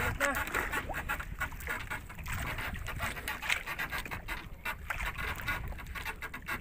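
Wind buffeting the microphone and water slapping against a small outrigger boat's hull, with irregular clicks and knocks throughout.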